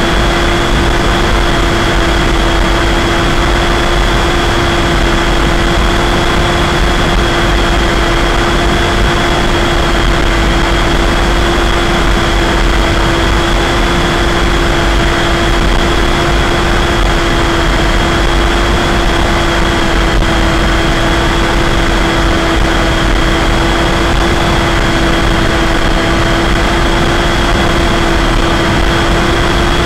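Multiplex EasyStar II RC plane's electric motor and pusher propeller running at a steady cruise throttle, a constant droning whine that holds one pitch throughout. Wind noise on the onboard camera's microphone rumbles underneath.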